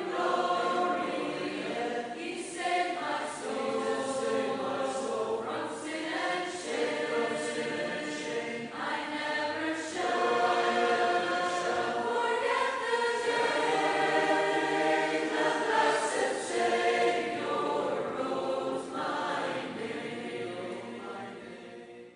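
A choir singing, several voices together in long held lines, fading out at the very end.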